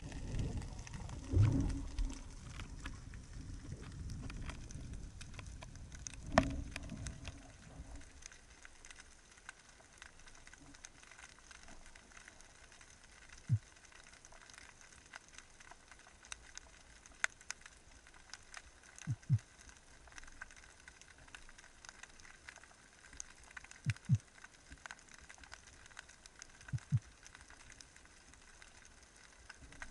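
Underwater ambience heard through a camera housing. A low rush of moving water lasts for the first eight seconds or so and then fades to a faint, steady crackle, with a few short low knocks and clicks.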